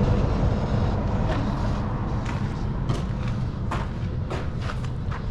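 Footsteps, a string of short crunching steps spaced about a second apart, over a steady low rumble.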